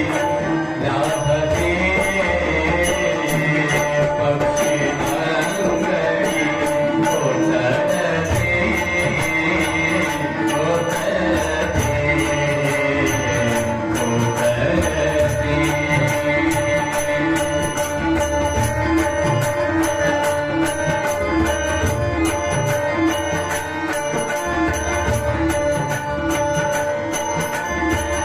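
Devotional bhajan music: sustained held notes over a steady beat of small ringing cymbals and a low drum.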